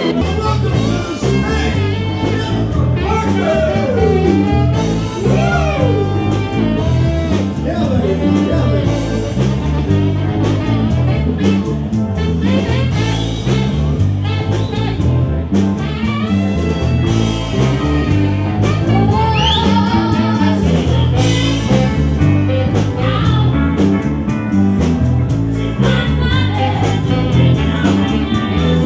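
A live rock band playing: drums, a stepping bass line, electric guitar and a woman singing.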